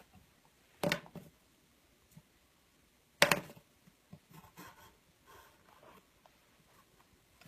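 Watercolor pencil scratching on paper, broken by two sharp knocks about two and a half seconds apart.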